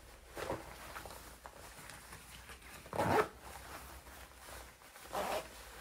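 Zipper on a Supreme Gore-Tex shell jacket's chest pocket being worked open and shut in three short rasps, the loudest about three seconds in.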